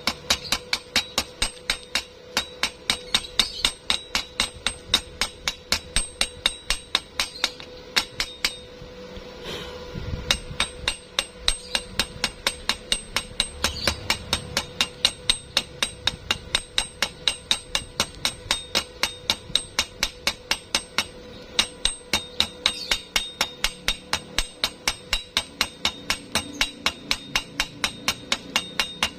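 Hammer striking metal in a steady rhythm, about three blows a second, each with a ringing metallic tone. There is a brief pause about eight seconds in.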